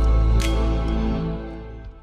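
Background music over a deep bass, with one sharp percussive hit about half a second in, fading out near the end.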